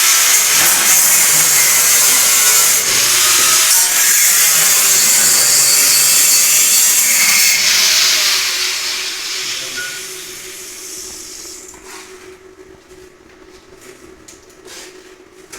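Power tool, an angle grinder, working metal with a loud, harsh hiss, then switched off about eight seconds in and winding down over the next few seconds.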